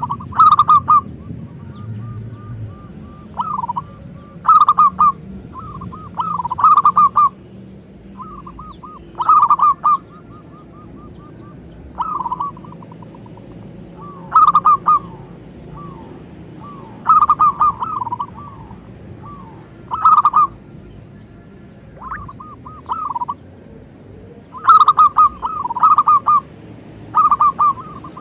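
Zebra dove (perkutut) cooing: short phrases of quick rolling coo notes, repeated every one to two seconds.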